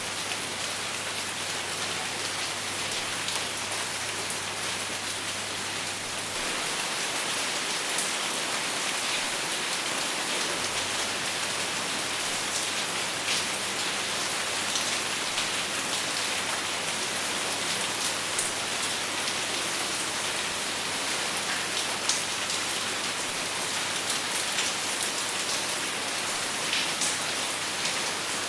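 Steady rain falling on a surface, an even hiss with scattered sharper drop ticks, and no thunder. It gets slightly louder about six seconds in.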